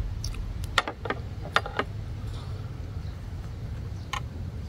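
Chewing and mouth smacks of someone eating spicy papaya salad: a few sharp clicks, most in the first two seconds and one more about four seconds in, over a steady low rumble.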